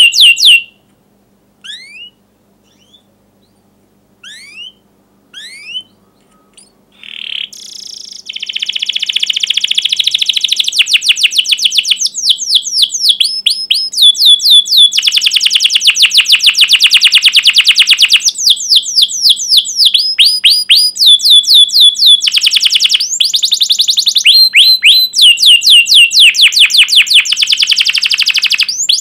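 Domestic canary singing: a few short, separate rising chirps, then from about seven seconds a long unbroken song of rapid repeated notes and rolling trills.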